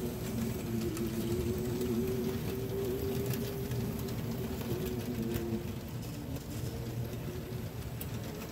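HO scale model train of loaded ore cars rolling over the track: a steady rumble with light clicking from the wheels, and a humming tone that drops away about five and a half seconds in.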